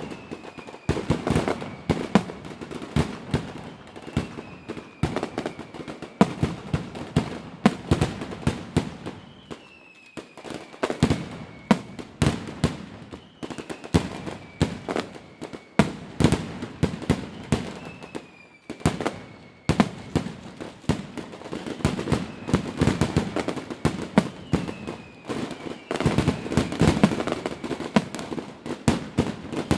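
Many fireworks going off at once: a dense, irregular string of sharp bangs and pops, with short whistles that fall in pitch several times.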